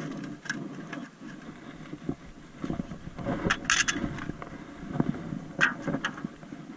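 Fishing gear being handled and set down on rock: irregular rustles and light knocks, with a sharp clatter a little past halfway and another near the end.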